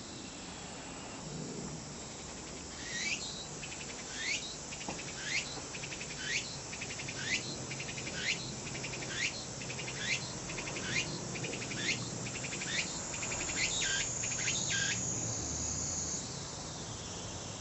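Tsukutsuku-boshi cicada (Meimuna opalifera) singing. Its buzzing song starts about three seconds in and repeats a sweeping phrase roughly once a second, quickening slightly, then changes to a closing figure and ends on a held high buzz.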